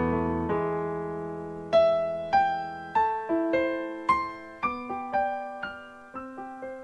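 Background music: a piano playing a slow melody of single struck notes and chords, each note fading away after it is struck.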